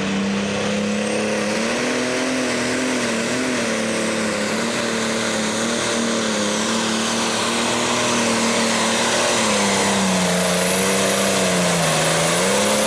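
Pro Stock pulling tractor's turbocharged diesel engine running flat out under load while dragging the sled. The engine note is steady, with a thin high turbo whine above it. About ten seconds in, the engine pitch sags and then recovers as the load builds toward the end of the pull.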